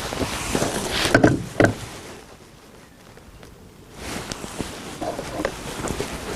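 Handling noise: two sharp clicks or knocks a little over a second in, then a quieter spell and more small clicks and rustles.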